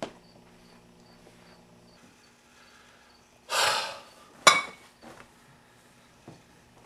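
A quiet room with a faint high chirp repeating about twice a second. About three and a half seconds in comes a short, loud rush of breath, then a sharp knock a second later.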